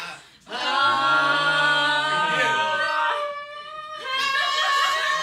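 A group of men and women singing a ballad together, drawing out long held notes, with a brief break about half a second in.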